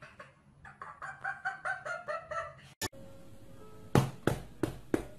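A quick run of about nine short, high, clucking notes, then sharp smacks about three a second, the loudest about four seconds in, as a cat bats its paws at a stuffed toy tiger.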